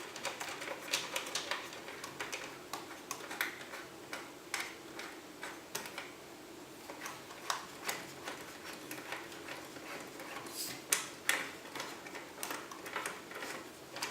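Irregular light clicks and taps of hands working on the parts inside a PC case, a few sharper clicks about eleven seconds in.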